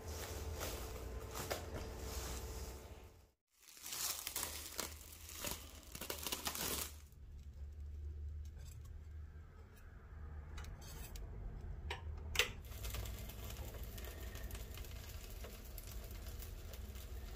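Plastic cling wrap crinkling as it is handled over a bowl of pancake batter, in crackly bursts through the first seven seconds with a short break about three and a half seconds in. After that, quieter stirring in the batter with a whisk and ladle, and one sharp click later on.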